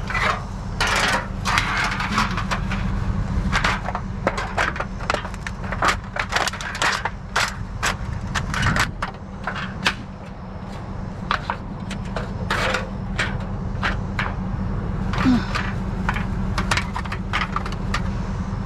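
Scrap sheet metal being folded and handled: many sharp clanks, crinkles and scrapes in quick irregular succession, over a steady low rumble.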